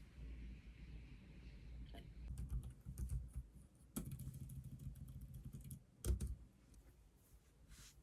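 Scattered light clicks and taps over a low hum.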